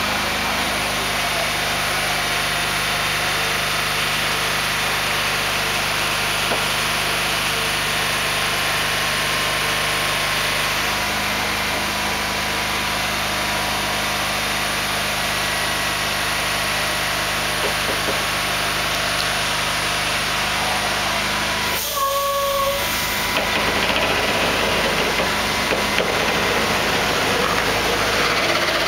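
Diesel engine of a heavy multi-axle hydraulic transporter running steadily, with a constant hiss, as the vehicle moves slowly. A brief high tone sounds once about two-thirds of the way through.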